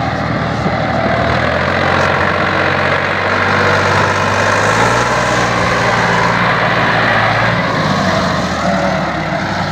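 Farm tractor's diesel engine running steadily under load while pulling a loaded trolley through a wet, muddy field. Its pitch shifts a little about halfway through.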